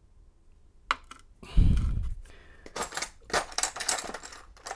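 Small metal padlock parts clicking and clattering as they are handled, with a single click about a second in and a dull thump about a second and a half in, then a quick run of sharp metallic clicks and rattles.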